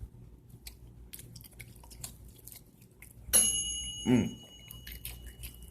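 Faint handling clicks, then about three seconds in a sudden loud knock of a metal kitchen object, which rings on in a high tone that fades over the next couple of seconds.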